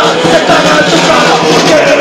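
Punk band playing live and loud: distorted electric guitar with a singer shouting into the microphone.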